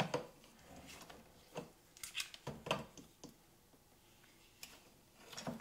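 Handheld manual can opener cutting around the lid of a metal can, turned by its knob: a series of irregular clicks and metal ticks.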